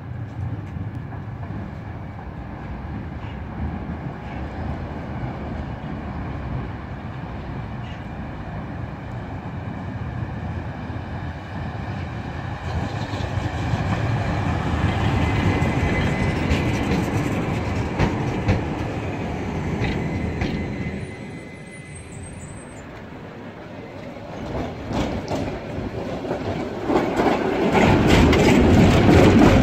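Trams running on street track: an articulated tram's motors and steel wheels rumbling as it moves off and runs past, with rail joints clicking and a thin wheel squeal about halfway. Near the end another tram passes close by, the loudest part.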